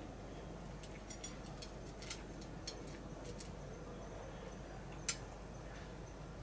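A cat eating dry kibble from a metal dish: a run of small clicks and clinks for a few seconds, then one sharper click about five seconds in.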